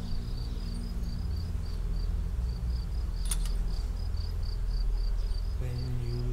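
Cricket chirping steadily at about four short high chirps a second, over a low steady drone. A low held music note comes in near the end.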